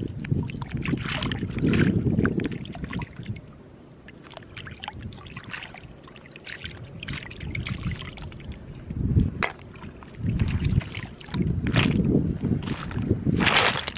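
Shallow lake water sloshing and splashing around wading legs and hands as snails are picked and rinsed, with trickles and drips and a louder splash near the end. Gusts of wind rumble on the microphone.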